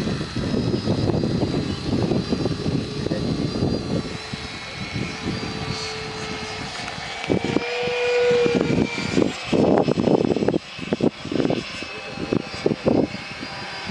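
Large electric multirotor drone hovering low, its rotors and motors giving a steady buzzing whine, with uneven low rumbling throughout.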